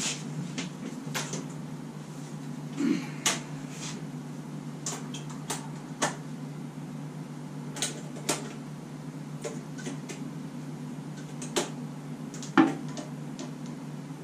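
Metal hand tools and sockets clinking and knocking as they are sorted through at a workbench: scattered sharp clicks, the loudest near the end, over a steady low hum.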